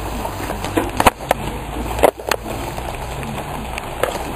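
Steady hiss of rain falling on a street, with a few sharp knocks about a second in and again around two seconds in.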